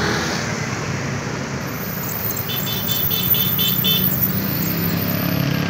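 Dense, slow road traffic: buses, cars and motor scooters running past in a steady wash of engine and tyre noise. About two and a half seconds in comes a quick string of about six short high beeps.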